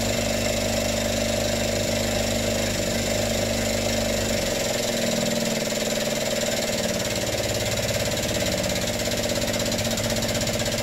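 Hydraulic shop press's pump running with a steady, rapidly pulsing hum as the ram squeezes a pair of dies into a brass plate to raise a bezel. The sound shifts about halfway through.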